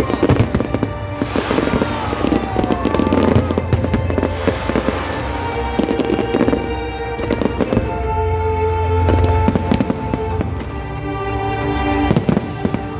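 Fireworks display going off in rapid, overlapping bangs and crackles, mixed with music holding steady tones.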